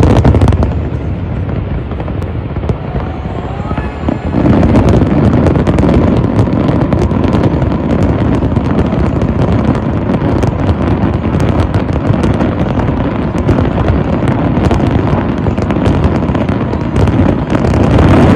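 Aerial fireworks bursting in a dense barrage of bangs and crackling, which grows heavier about four seconds in, with a shell's whistle near the end.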